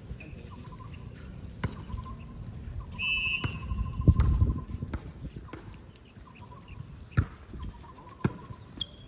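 Basketball game on an indoor court: sneakers squeaking repeatedly on the floor, with several sharp ball bounces. A short whistle blast sounds about three seconds in, followed by a burst of low rumbling noise.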